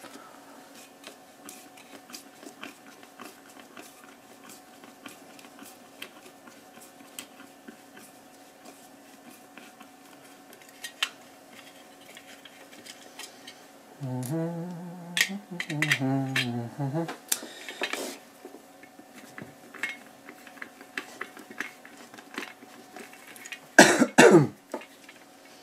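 Small clicks and light metallic clinks of a screwdriver working tiny screws out of a metal LED floodlight housing, with a faint steady hum beneath. Midway there is a few seconds of a man's wordless voice, and near the end a loud, short scrape that falls in pitch.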